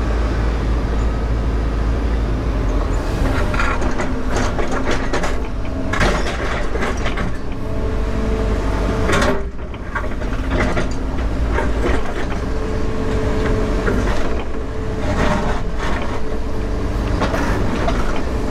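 Volvo 140 excavator's diesel engine running steadily under hydraulic load, with a whine that holds for several seconds at a time. Over it, the bucket scrapes and knocks against a large rock again and again, with louder knocks about three seconds in and near the middle.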